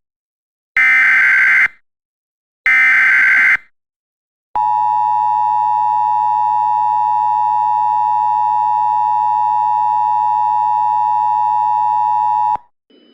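Emergency Alert System activation for a tornado warning. The last two of three short, buzzy SAME header data bursts sound about two seconds apart. Then a steady, loud EAS attention tone holds for about eight seconds and cuts off suddenly.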